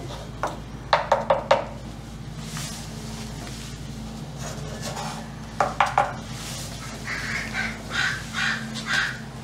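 A resin brush dabbing and stroking wet fiberglass. There are two quick runs of sharp taps, four and then three, and several short rasping brush strokes near the end, over a steady low hum.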